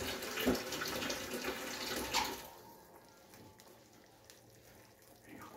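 Water sounds in a kitchen, a rush with small clinks, for about the first two seconds, then it drops to near quiet.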